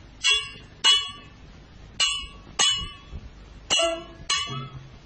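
Small metal percussion struck in a steady pattern of paired strikes, each ringing briefly. There are three pairs, the two strikes in each pair about half a second apart.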